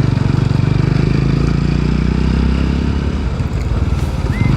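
TVS Apache RTR 200 4V's single-cylinder engine running steadily while riding, with a short dip in its sound near the end.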